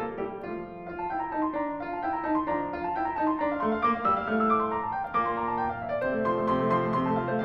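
Background instrumental music: a piano playing a steady run of notes.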